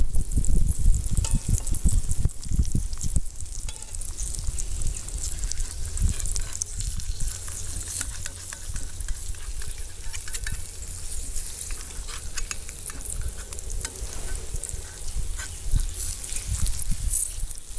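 Eggs frying and sizzling in a cast-iron skillet, with a metal spatula scraping and clicking against the pan as they are turned over. A low rumble runs underneath, strongest in the first few seconds and again near the end.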